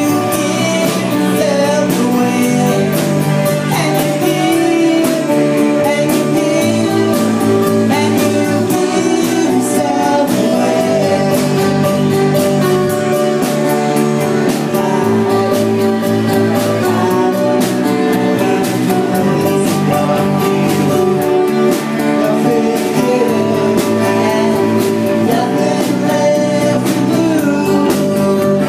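Live rock band playing loud: strummed acoustic-electric guitar, electric guitar and a drum kit keeping a steady beat, with a voice singing over them.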